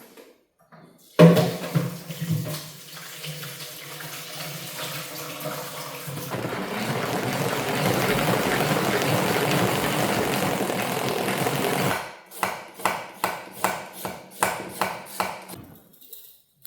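Water running from a tap, starting abruptly and getting louder partway through, then shut off. A quick series of light clicks or knocks follows near the end.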